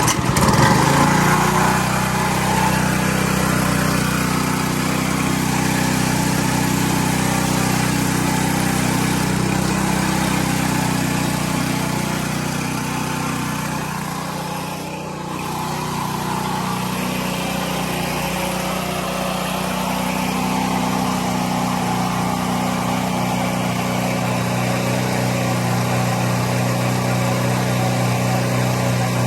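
Small gasoline engine of a 2.5 GPM pressure washer running steadily, its sound dipping briefly about halfway through.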